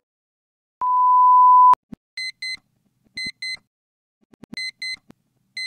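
A loud, steady, mid-pitched electronic bleep lasting about a second and cut off with a click. After it come pairs of short, high electronic beeps, repeating about once a second.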